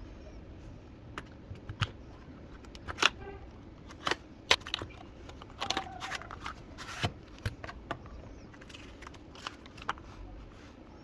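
Packaging being handled during an unboxing: scattered clicks, taps and short rustles at an irregular pace, with a brief pitched squeak about six seconds in.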